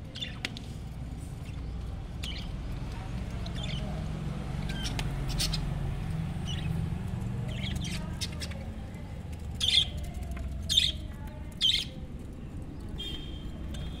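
Budgerigars chirping and squawking in short, sharp calls scattered throughout, three louder calls close together about two-thirds of the way in, over a steady low hum.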